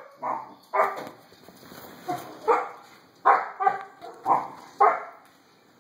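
Young Irish Wolfhound puppy giving a string of short barks, about eight, at uneven intervals.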